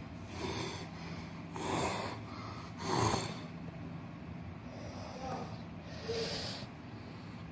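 A person breathing heavily: loud, noisy breaths about every second or so, the loudest about three seconds in, over a steady low hum.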